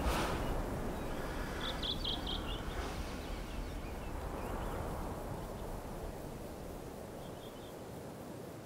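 Outdoor ambience: a steady low noise bed fading slowly, with a small bird giving a quick burst of high chirps about two seconds in and a short chirp again near the end.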